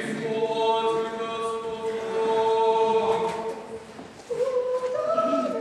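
Russian Orthodox church choir singing unaccompanied liturgical chant: a long held chord that fades away about four seconds in, then a new phrase begins.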